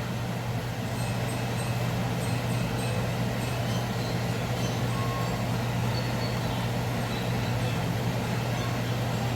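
Steady low mechanical hum with an even hiss, unchanging throughout, typical of a kitchen appliance or fan running.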